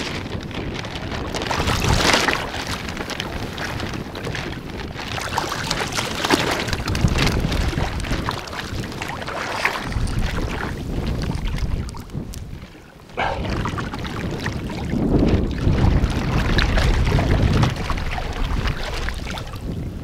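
Shallow seawater sloshing and swishing around a person wading in waders, in repeated surges, with wind buffeting the microphone as a low rumble.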